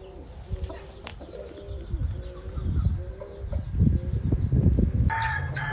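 Low, wavering bird cooing that comes in short stepped phrases, with low thumping rumbles through the middle. Near the end a louder sound starts, with a steady low hum and higher tones.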